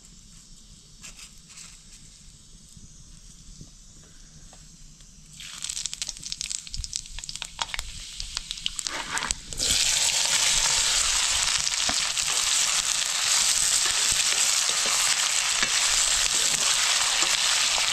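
Food frying in hot oil in a cooking pan. The start is quiet with a few clicks; crackling begins about five seconds in. About ten seconds in it jumps suddenly to a loud, steady sizzle.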